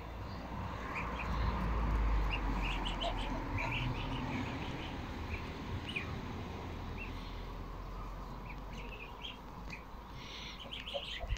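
Goslings peeping as they feed, many short high calls overlapping and growing busier near the end, over a low rumble.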